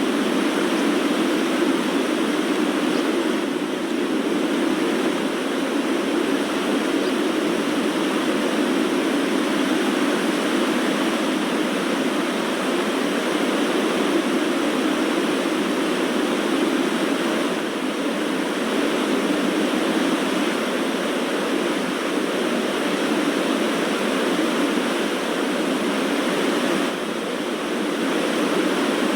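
Steady rushing wind sound effect, an even, unbroken noise that dips only slightly near the end.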